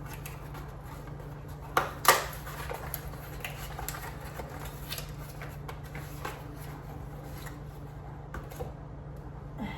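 Package being handled and opened: rustling and crinkling with two sharp crackles about two seconds in and smaller clicks after, over a steady low hum.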